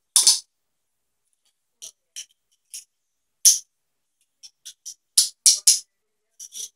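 Short jingles and clicks come at irregular intervals, with a burst of several close together about five seconds in. They come from a handcuff case holding toy handcuffs as it is forced onto a duty belt, the cuffs and belt gear rattling.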